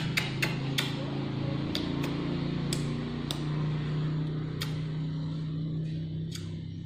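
A steady low motor hum, with sharp clicks scattered through it, several close together in the first second.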